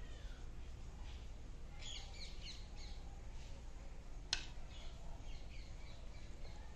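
Birds chirping in the background, with a cluster of quick high chirps about two seconds in, over a low steady hum. One sharp click sounds a little past four seconds in.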